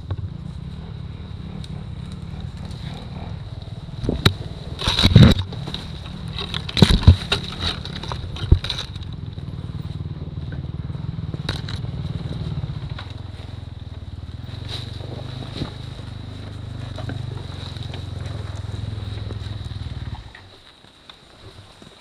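Dirt bike engine running at low, steady revs while creeping through dense undergrowth, with loud cracks and scrapes of branches and twigs against the bike several times between about four and nine seconds in. The engine cuts off about twenty seconds in.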